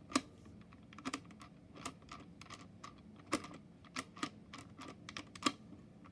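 Irregular light clicks and taps of hard plastic as a 1970s Princess rotary phone is handled, about a dozen scattered through six seconds, with the loudest near the start and about five seconds in.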